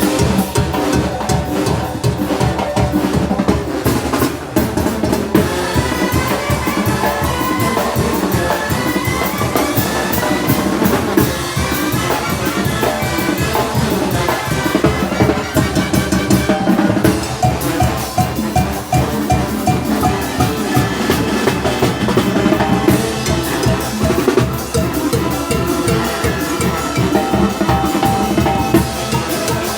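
Brass band (banda de viento) playing a fast, driving 'muertero' carnival rhythm: wind instruments over a steady beat of bass drum and snare.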